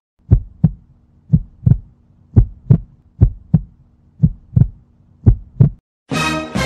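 Heartbeat sound effect: six double thumps, about one a second, over a faint steady low hum. Music comes in near the end.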